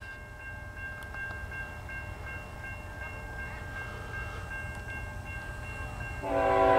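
Canadian National freight locomotive's horn sounding about six seconds in: a loud, steady chord of several notes. Under it, and before it, a low steady rumble and a faint high tone that pulses about three times a second.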